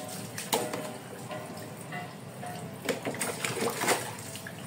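Water poured from a plastic scoop over a wet dog's back, splashing onto the dog and the wet tiled floor, with the heaviest splashing about three to four seconds in.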